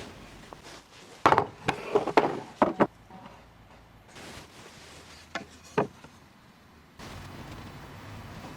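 Wooden knocks and clunks, a quick cluster of sharp hits in the first few seconds and two more a little later, as a wooden board is handled and set down. A steady low noise begins near the end.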